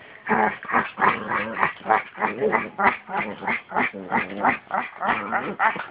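A small dog vocalizing in play, close to the microphone, in a quick, unbroken run of short pitched pulses, about four a second.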